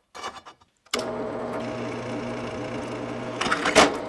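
Drill press motor starts about a second in and runs with a steady hum, drilling a half-inch steel C-channel; a louder, harsher stretch near the end as the bit cuts into the steel.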